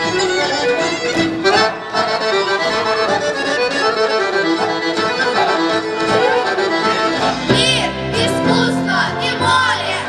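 Bulgarian folk dance music with a fast, busy melody line. About seven and a half seconds in, it cuts abruptly to a different piece with a steady bass line and sliding high notes.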